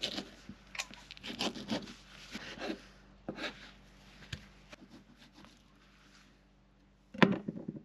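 Kitchen knife filleting a small horse mackerel on a wooden cutting board: a run of short scraping, rasping strokes, quieter after the first few seconds, then one louder knock near the end.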